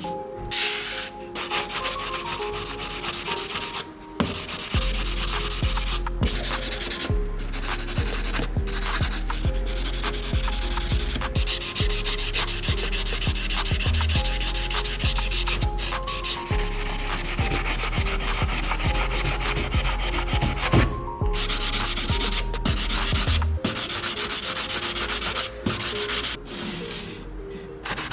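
Sanding on the metal body of a die-cast Honda NSX model car: a steady scratchy rasp, broken by brief pauses every few seconds.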